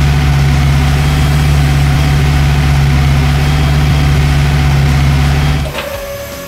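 Large truck engine running steadily at idle, a deep even rumble, dubbed in as a sound effect. It drops away near the end, leaving a quieter steady tone.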